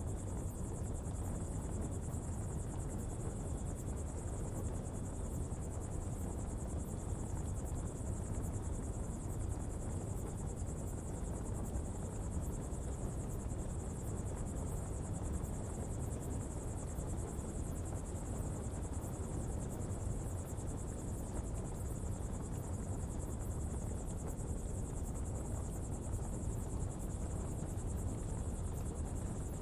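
Coal-fuelled pottery fire burning with a steady low noise, under a continuous high-pitched insect chorus.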